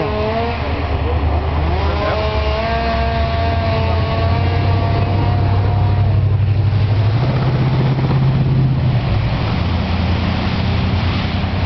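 Car engine and road noise, a steady low rumble whose tone shifts about seven seconds in, with faint wavering higher tones over it.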